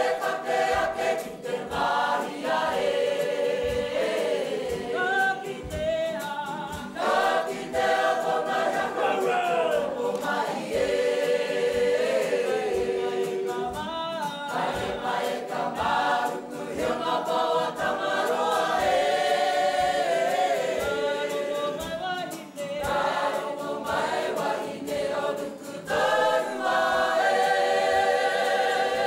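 Kapa haka group of mixed men's and women's voices singing a Māori waiata in unison, over a steady beat of low thuds.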